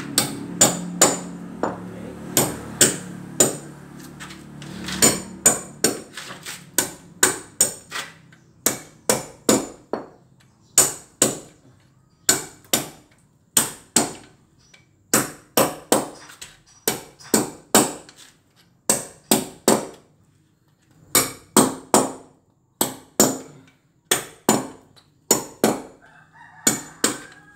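Hammer chipping a concrete floor, striking a pointed tool held against the cement with sharp blows in quick runs of two to four and short pauses between. The floor is being roughened so the tile adhesive will grip.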